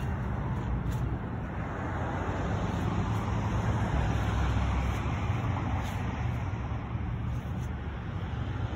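Steady rumble of road traffic, an even low drone with no distinct events.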